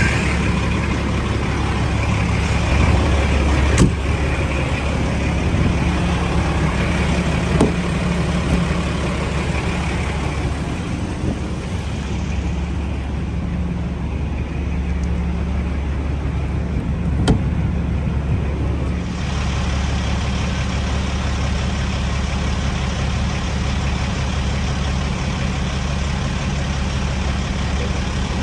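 Truck engine running steadily at idle, with a few sharp clicks.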